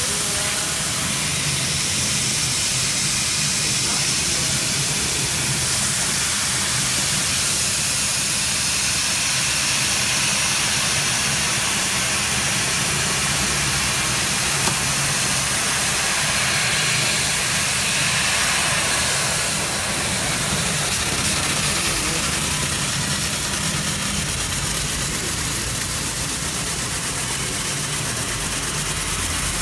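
Laser cutting machine running: a steady hiss with a low hum underneath.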